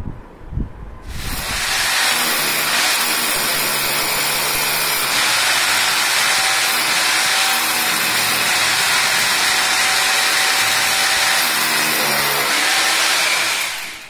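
Corded electric power drill with a long bit boring into the wall, starting about a second in and running steadily under load until it stops just before the end.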